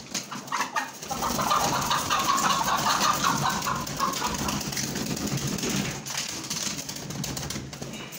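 A flock of Lohmann LSL Lite white laying hens calling, many overlapping clucks, busiest in the first few seconds and thinning out toward the end.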